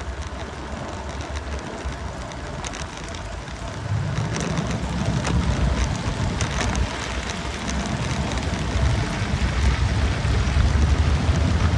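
Wind buffeting the microphone and road noise while riding a bicycle along wet streets: a gusting low rumble over a steady hiss. It is lighter at first and grows louder about four seconds in as the bike picks up speed.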